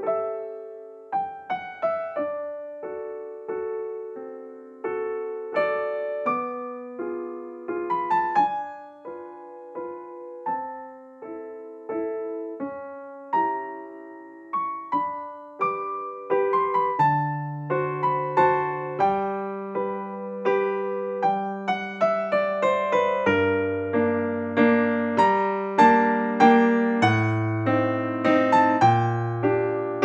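Background music: a piano piece of single notes and chords, each ringing and fading, with low bass notes coming in about halfway and the playing growing fuller toward the end.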